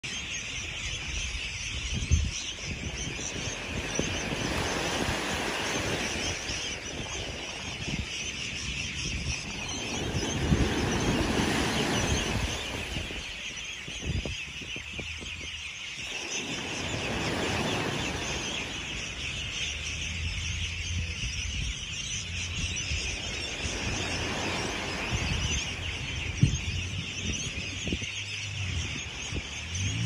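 Small waves breaking and washing up a sandy beach, swelling and fading every several seconds, over a steady high-pitched background sound. A few sharp clicks stand out, one about two seconds in and another near the end.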